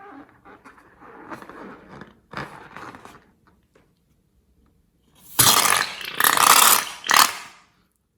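Slime being worked by hand: soft squishing and scraping, then three loud squelching bursts over about two seconds near the end.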